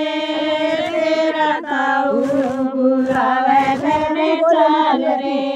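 A woman's voice singing a Haryanvi banna geet, a folk wedding song for the groom, in long held notes that waver slightly in pitch.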